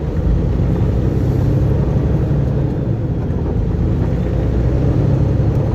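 Semi truck's diesel engine running steadily, a low rumble heard from inside the cab.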